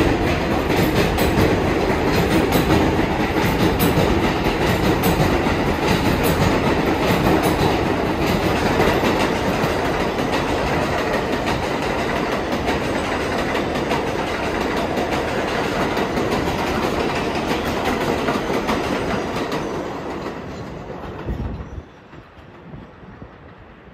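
R188 subway train running along the track, wheels clattering over the rail joints. It stays loud and steady for most of the time, then fades and drops away sharply near the end.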